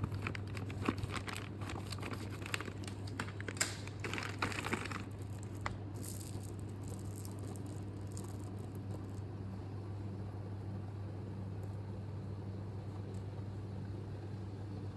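A chainsaw chain being handled: light clicking and rattling of its links for the first five seconds or so, then only a steady low hum.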